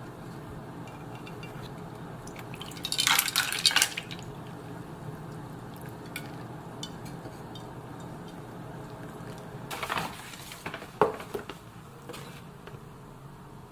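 Dishes and utensils clinking and clattering: a loud burst of about a second roughly three seconds in, a shorter one near ten seconds, then a few single clicks, over a steady low hum.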